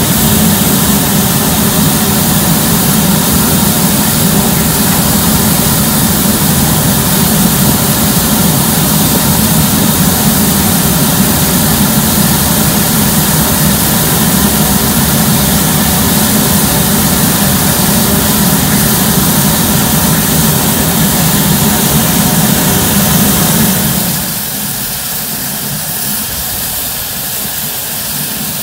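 Steady loud rush of escaping steam from a standing LMS Stanier Black Five steam locomotive, 44871. It steps down to a lower, steady level about three-quarters of the way through.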